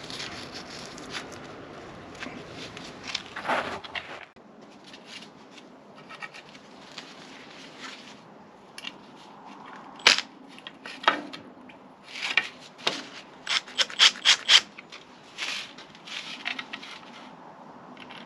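Hand work fixing a timber batten into wall plugs: irregular scraping and rubbing of wood and fixings, with a quick run of about half a dozen sharp knocks in the second half.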